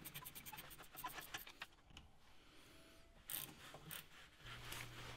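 Ratcheting spanner with a 7mm hex bit clicking rapidly as it undoes a brake caliper slide pin, stopping about a second and a half in, with a few faint clicks near the end.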